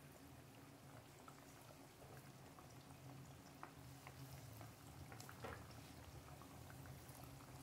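Faint sizzling of banana-cassava pancakes (kabalagala) deep-frying in hot oil, with scattered small crackles and pops over a low steady hum.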